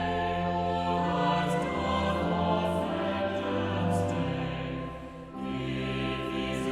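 Choir singing held notes in slow chords, with a short break for breath about five seconds in.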